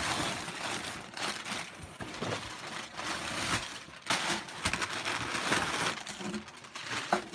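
Cardboard scraping and rustling in repeated bursts as an inner box is slid out of a larger cardboard shipping box, with a few short knocks and a sharper one near the end.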